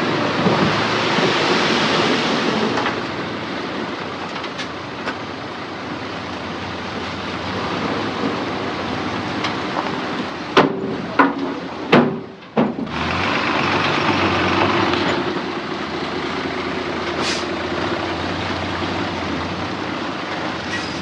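Heavy diesel earthmoving machinery running: dump truck and bulldozer engines working. About halfway through come four short, sharp sounds close together.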